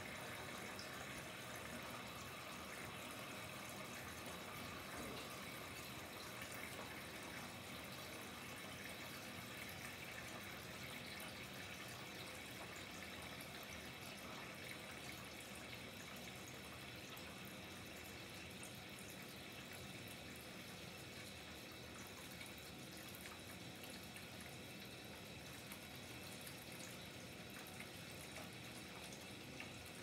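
Faint, steady trickle of water from a slightly leaking faucet, with occasional drips, easing a little over time.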